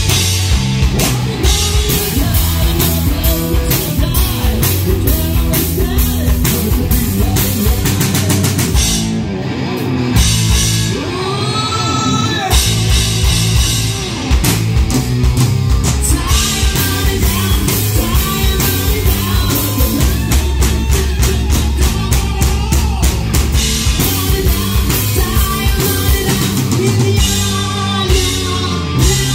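Live rock band playing loudly: drum kit, electric bass and electric guitar, with a male singer. The drums drop out briefly about ten seconds in.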